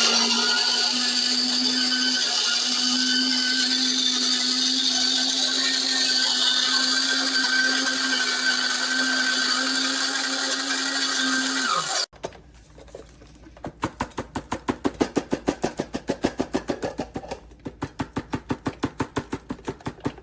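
Electric burr coffee grinder running steadily with a humming tone for about twelve seconds, then stopping abruptly. After that, a quieter run of quick rhythmic strokes, about five a second.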